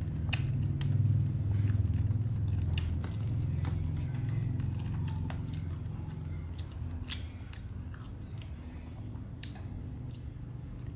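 A person chewing and biting food close to the microphone, with scattered crunching clicks; a low rumble is loudest in the first few seconds and then fades.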